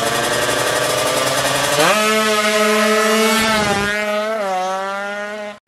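Drag-racing motorcycle engines revving at the start line. About two seconds in, one launches: its pitch sweeps sharply up and holds high, with a brief dip and rise, then fades as the bike pulls away. The sound cuts off abruptly near the end.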